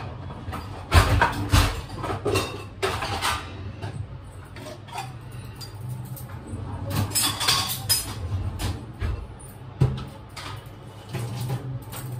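Stainless steel plates and utensils being washed by hand at a kitchen sink: repeated knocks and clatters of metal on metal, with short spells of rushing noise from the washing, the longest a little after seven seconds in.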